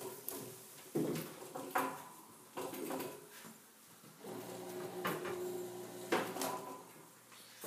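Knocks and scraping clatter of hard equipment being handled and set down, with a brief steady hum a little past the middle.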